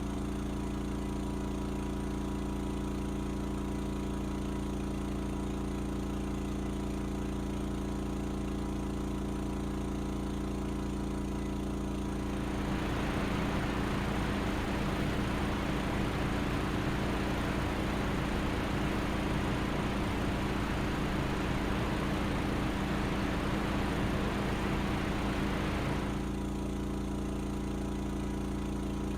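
Valtra forestry tractor's diesel engine running at a steady speed. From about twelve seconds in until about twenty-six seconds, a louder rushing, churning noise joins it, then drops away abruptly.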